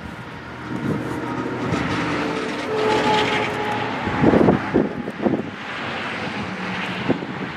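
Engine drone of something passing by, with several steady tones, swelling over the first few seconds and then easing off. A few short knocks come in from about halfway through.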